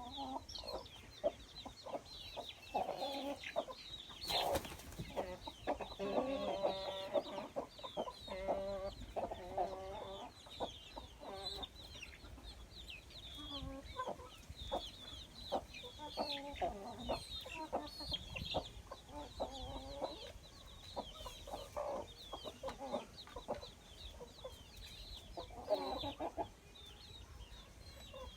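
Chickens clucking on and off, with a steady run of many small, high-pitched chirps underneath.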